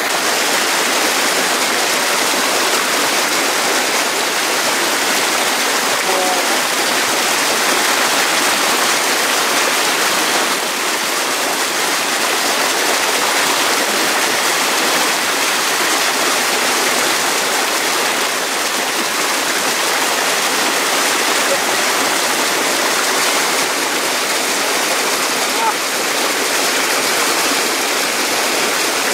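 Small rocky stream pouring over a little cascade: a loud, steady rush of water.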